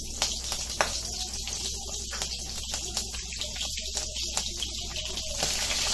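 Curry leaves, green chillies and cumin seeds sizzling in hot oil in a kadai, a steady hiss dotted with many small pops and crackles. The sizzle grows louder near the end.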